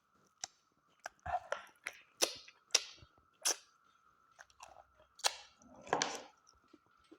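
Close-up eating sounds: a person chewing with the mouth open, a run of wet smacks and crunches from chewing smoked mutton and curry.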